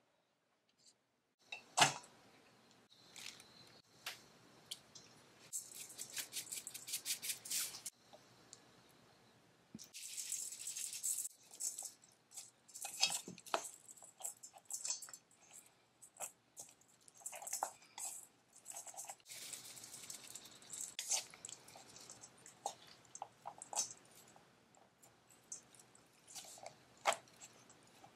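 Kitchen food-preparation handling sounds: scattered clicks and clinks, a quick rattling run of ticks, and bursts of rustling, with one sharp click near the start the loudest.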